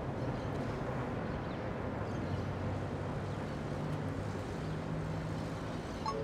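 Steady rumble of road traffic, with a low engine drone that shifts slightly in pitch as vehicles pass.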